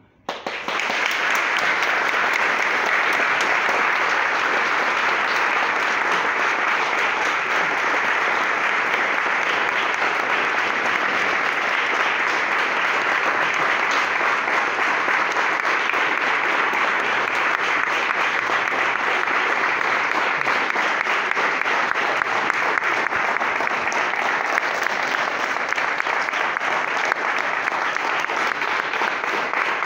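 Audience applauding: dense, sustained clapping that starts about half a second in and holds at an even level throughout.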